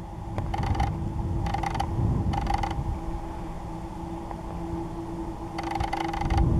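Camera lens motor whirring in short bursts, four times, over a steady hum and low rumble of handling noise as the camera pans.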